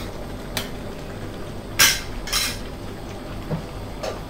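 A stirring utensil scraping and clinking against a metal wok as a curry is stirred: about five short strokes, the loudest about two seconds in, with another close after it.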